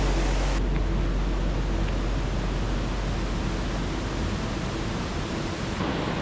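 Steady rushing of fast-flowing water from a rain-swollen mountain stream. Its highest hiss drops away about half a second in and comes back near the end.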